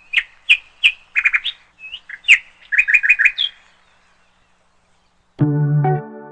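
A small bird chirping: a string of sharp, quick chirps and short rapid trills for about three and a half seconds. After a pause, gentle instrumental music with a steady pitched accompaniment comes in near the end.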